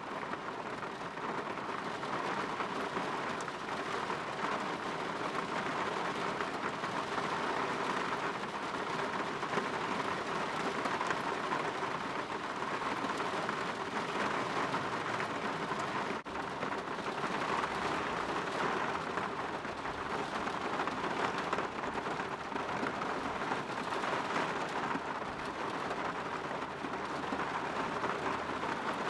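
Rain falling steadily against a window, an even patter without a break.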